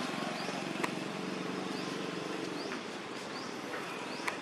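Outdoor background sound: short high rising chirps repeating every fraction of a second over a low steady drone that fades after about two and a half seconds, with two sharp clicks, one about a second in and one near the end.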